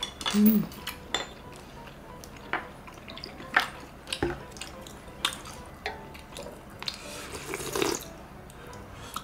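Spoons and chopsticks clicking against a metal pan and small bowls, with soft slurps of hot soup broth, the longest near the end.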